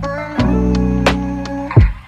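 Background music: guitar notes over a sustained bass, with sharp percussion hits.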